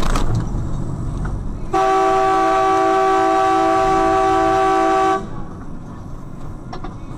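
A two-tone vehicle horn sounds one long blast of about three and a half seconds, starting about two seconds in and cutting off abruptly. Low engine and road noise runs underneath.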